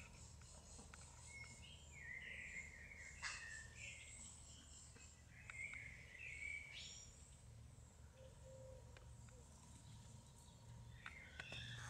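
Faint outdoor ambience: a low steady rumble with distant birds calling, several short chirping calls in the first half.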